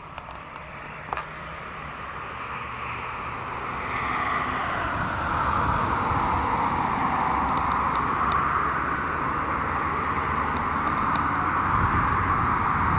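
Distant engine noise, a steady hum that grows gradually louder. A single sharp click comes about a second in.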